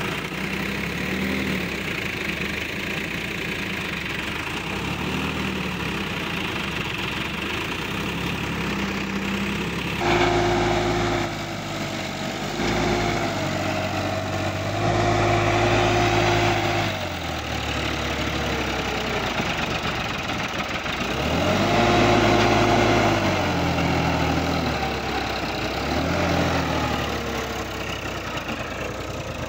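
Sonalika DI-50 RX tractor's diesel engine running steadily. About ten seconds in the sound changes abruptly, and the engine then revs up and down several times as it pulls a loaded trolley.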